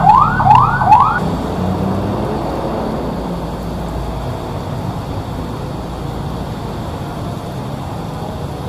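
Fire engine siren sounding fast rising whoops, about three a second, that stop a little over a second in. After that comes the steady hiss of heavy rain, with cars passing on the wet road.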